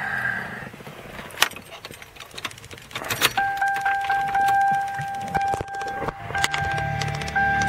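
Keys jangling and clicking at the ignition of a 1998 Mercury Grand Marquis. About three seconds in, the car's steady electronic warning tone starts and keeps breaking off briefly and coming back, with a low hum joining near the end.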